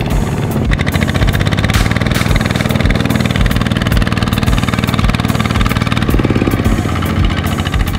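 Single-cylinder diesel engine of a two-wheel walking tractor chugging steadily under load, pulling a loaded trailer through mud.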